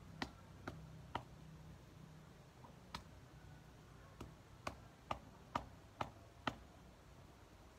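A series of sharp taps, roughly two a second: three near the start, one about three seconds in, then a run of six. Sounds like hand work: a hard object being knocked or struck with a small tool.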